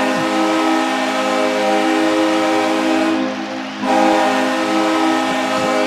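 Ice hockey goal horn blaring, a deep multi-note air horn that sounds a touchdown. It holds one long blast, drops out briefly about three seconds in, then sounds again.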